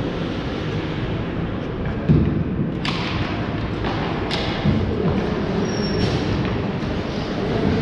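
Ice hockey play in a rink over a steady low rumble: two dull thumps, as of bodies or the puck against the boards, and a few sharp clacks of sticks and puck.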